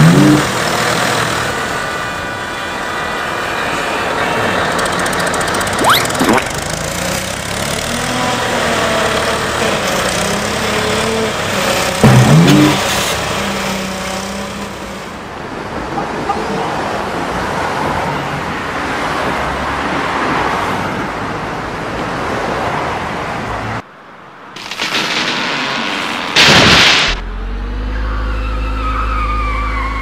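Cartoon vehicle sound effects: engines running in traffic, with a short rising sweep about every six seconds. Near the end the sound drops out briefly, then comes a loud burst and a low steady engine hum.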